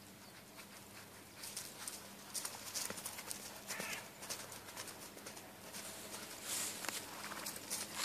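Hoofbeats of a Sportaloosa foal cantering on grass: irregular soft thuds that start about a second and a half in and grow louder as the foal comes near.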